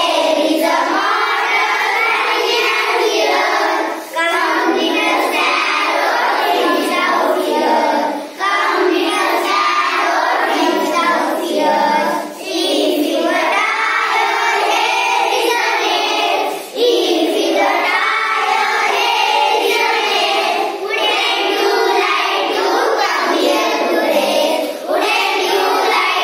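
A group of children chanting an English action poem in unison, sing-song. It goes in lines of about four seconds, each followed by a brief pause for breath.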